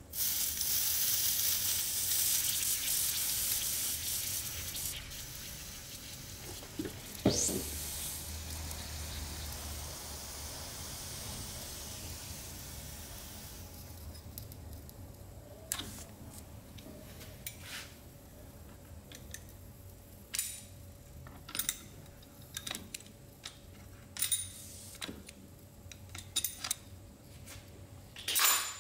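Liquid poured over the hot bolt and metal chainsaw housing sizzles, starting at once and fading away over about thirteen seconds, with a sharp clink about seven seconds in. After that come scattered light ticks and taps, with a louder one near the end.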